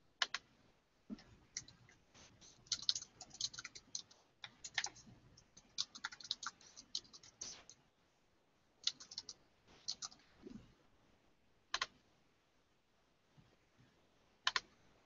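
Faint typing on a computer keyboard: a quick, irregular run of keystrokes for about eight seconds, then only a few scattered clicks.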